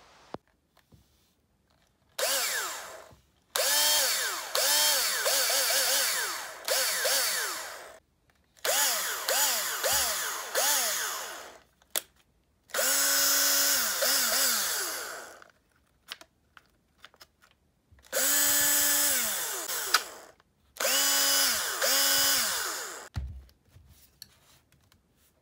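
Makita 6270D 12 V cordless drill-driver running with an empty chuck in six separate runs. Its motor whine rises as the trigger is squeezed and falls away on release. Some runs are quick pulses of the trigger, others are held at a steady speed for about two seconds; this is a test run of the refurbished drill.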